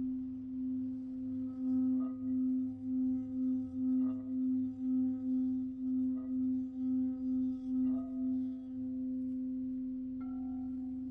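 Crystal singing bowls ringing. One bowl holds a strong low tone that swells and fades about twice a second, with faint taps about every two seconds. Near the end a second, higher-pitched bowl starts to sound.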